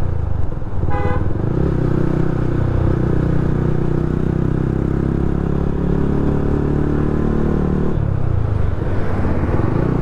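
Yamaha R15's single-cylinder engine running at a steady cruise while riding, with a short horn beep about a second in. Near the end the throttle is eased off and the engine note drops as the bike slows.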